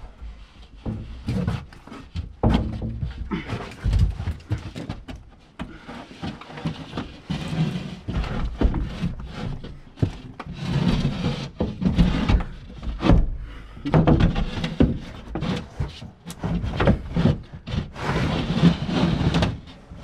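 A large rigid sheet being worked into a tight opening in wooden stud framing: irregular knocks and thuds as it bumps the studs, with stretches of scraping as it is shoved and slid.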